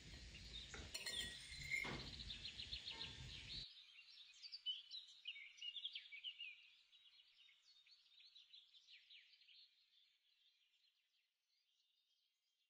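Faint birds chirping in quick high twitters. The background noise underneath cuts off abruptly a few seconds in, and the chirps fade out toward the end.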